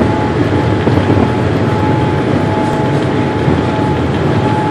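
Cabin noise inside a Boeing 787 during takeoff: the jet engines and rushing air make a loud, steady low rumble, with a faint steady whine over it.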